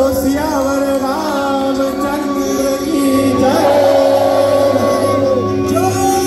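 Live Hindu devotional music: singing with pitch glides over acoustic and electric guitars and steady held notes underneath.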